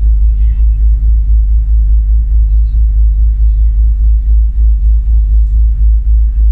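Loud low rumble with a fast, uneven throb, as heard aboard a boat underway.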